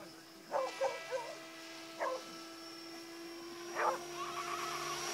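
Align 550 radio-controlled helicopter flying at a distance, a faint steady hum from its motor and rotors. Several short sharp calls stand out above it, a quick cluster in the first second, then one about two seconds in and another near four seconds.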